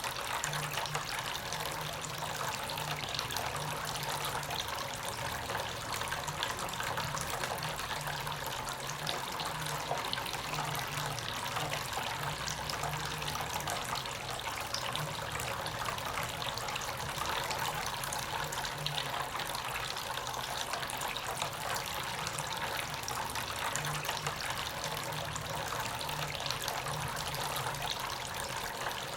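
Water trickling and splashing steadily from a small tabletop water fountain fed by a submersible pump, with a faint low hum underneath.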